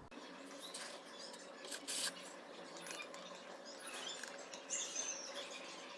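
Small plastic cap being handled, and granular fertilizer tipped from it into a glass jar of water: light clicks, rattles and pattering, the loudest cluster about two seconds in.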